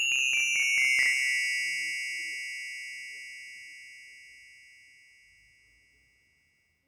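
A bright, high chime, likely an edited-in sound effect: a quick run of struck notes stepping down in pitch, then one ringing tone that fades out over about four seconds.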